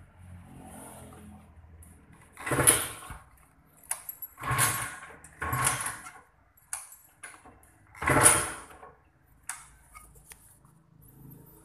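Kawasaki Ninja 150 RR two-stroke single idling through an Akrapovič racing exhaust, with about four short, loud throttle blips in between.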